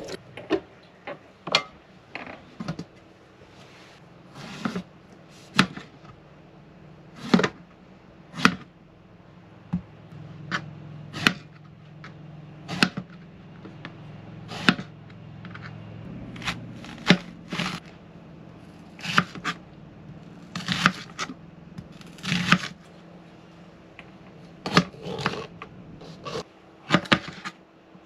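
Kitchen food preparation: irregular sharp knocks and clicks of a knife and utensils on a cutting board, roughly one every second or so.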